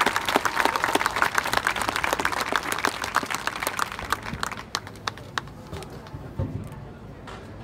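Audience in the stands applauding a marching band, dense clapping at first that thins to scattered claps about halfway through.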